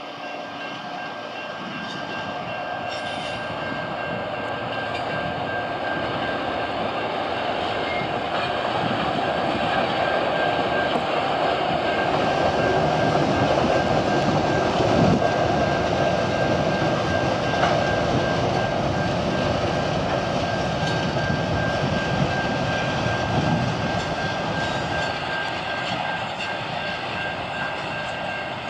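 Diesel-electric freight locomotives of a cotton train passing, their engines and wheels on the rails growing louder to a peak about halfway through and then easing off as they move on.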